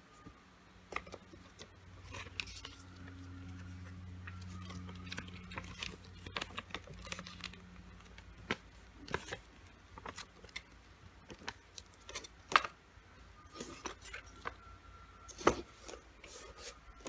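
Hands handling a lightstick's packaging: rustling and scraping with scattered sharp taps and clicks, the two loudest about twelve and fifteen seconds in.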